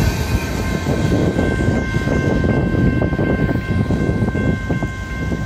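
Rear of a long freight train rolling past and away: a dense rumble of steel wheels on rail with scattered clacks. A few steady high tones run through it and cut off just as it ends.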